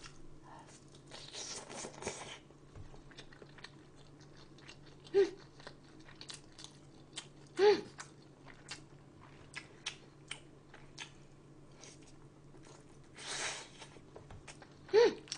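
Close-miked eating of spicy braised chicken (dakbokkeumtang): soft chewing with many small wet mouth clicks. Three brief louder sounds of the voice stand out, and a steady low electrical hum runs underneath.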